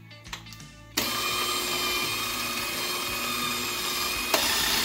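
Electric hand mixer with spiral dough hooks switching on about a second in and running steadily as it beats a stiff challah dough in a steel bowl, with a click near the end after which it runs slightly louder.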